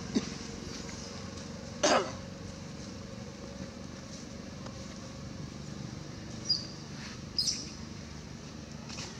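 A few short macaque calls over steady background noise: one loud, harsh bark-like call about two seconds in, then brief high squeaks about six and a half and seven and a half seconds in.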